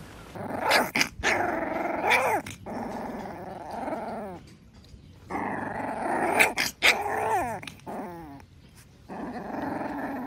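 A Rottweiler puppy growling and giving little squeaky yips at a person's hand, in three bouts with short pauses between.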